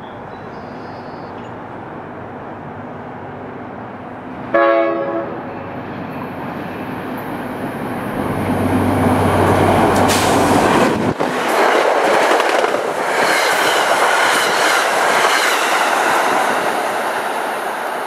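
NJ Transit GP40PH-2B diesel locomotive gives one short blast on its K5LA horn a few seconds in, then runs through the station at speed. Its engine rumble builds as it draws level, and the Comet coaches follow with loud wheel clatter and rushing noise.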